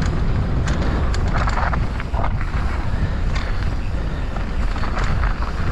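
Mountain bike rolling down a dirt and gravel trail: a steady low rumble of wind on the microphone, with the tyres crunching over the ground and short rattling clicks from the bike throughout.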